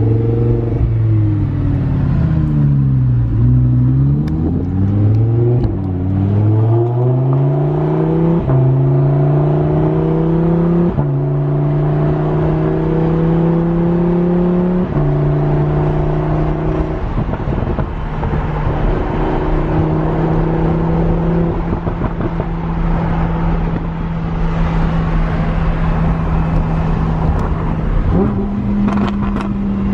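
Lamborghini Huracán's V10 engine with an aftermarket exhaust driving under way. Its pitch dips and climbs over the first few seconds, then rises through the gears with a sudden drop at each of three upshifts. It holds a steady cruise and steps up in pitch near the end.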